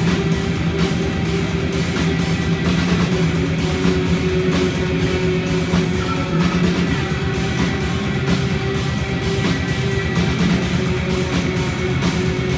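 Metal band playing live: electric guitars over a steady, even drum-kit beat.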